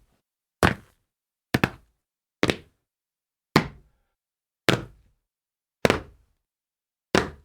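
A person jumping and landing on a tile floor, seven landings about a second apart, each a sharp thud that dies away quickly; a couple land as a quick double hit.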